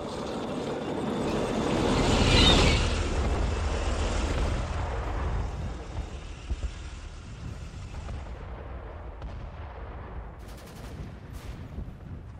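Battle sound effects: a blast swells to a peak about two and a half seconds in and rumbles away over the next several seconds, over a low steady rumble. A few short sharp cracks follow in the second half.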